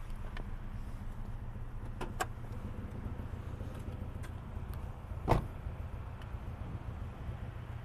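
Car engine idling, heard from outside the car, as a steady low hum with an uneven pulsing; the owner is chasing an unexplained knock and vibration at idle. A couple of faint clicks come about two seconds in and a single loud thump a little past five seconds.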